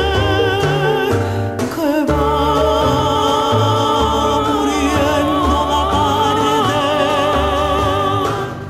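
A woman's soprano voice singing a Cuban trova song with wide vibrato, over an instrumental accompaniment with a moving bass line. After a brief break about two seconds in, she holds one long note almost to the end.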